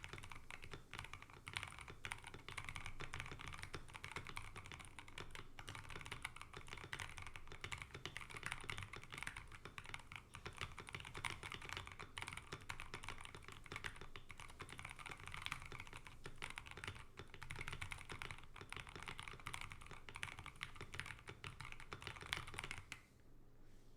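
Rapid, continuous typing on a mechanical keyboard with lubed and filmed Zealios V2 67 g tactile switches, XDA profile keycaps and a wooden case. The typing stops about a second before the end.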